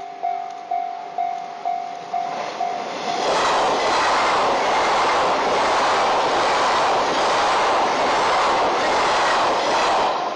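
Level-crossing alarm ringing about twice a second. About three seconds in, a JNR 183 series express electric train passes close by with a loud, steady rush of wheel and rail noise that covers the alarm until just before the end.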